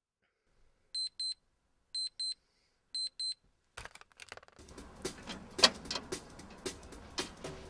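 Digital alarm clock beeping: three double beeps, a pair each second, a single high tone. Then a knock as a hand comes down on the clock, followed by a noisy background with scattered clicks and knocks.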